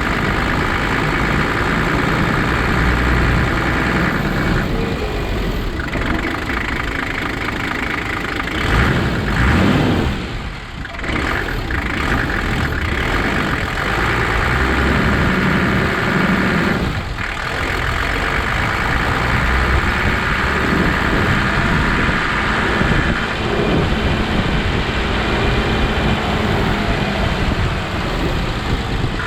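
Toyota Land Cruiser HJ75's replacement 2H inline-six diesel engine running steadily, with brief dips in the sound about ten and seventeen seconds in.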